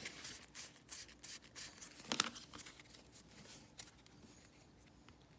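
Pokémon cards and a foil booster-pack wrapper being handled: a run of short rustles and crinkles, the loudest about two seconds in, tailing off to quiet near the end.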